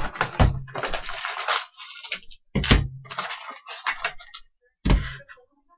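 Plastic trading-card pack wrappers crinkling and tearing as packs are opened by hand, in ragged bursts with short pauses. Two heavier thumps come about two and a half seconds in and near the end.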